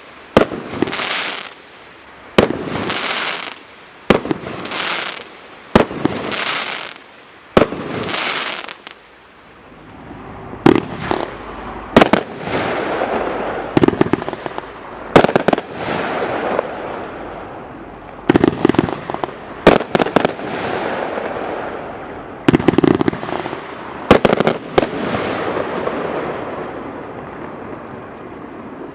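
Total FX Caged Tiger Pro firework cake firing its 30mm shells. For the first several seconds the shots come about once a second, each with a short hiss after it. After that come clusters of sharp bangs over a longer crackling hiss, which fades near the end.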